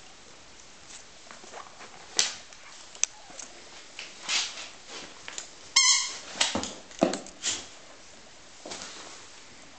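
A pet playing with a squeaky toy: scattered short scuffling noises and one clear, pitched squeak from the toy a little before the six-second mark.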